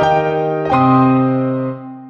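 Background piano music: a new chord is struck a little under a second in and rings on, fading away near the end.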